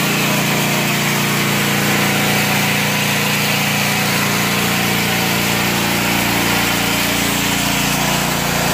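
Pressure washer running steadily, its motor humming under the loud hiss of the water jet spraying a concrete yard.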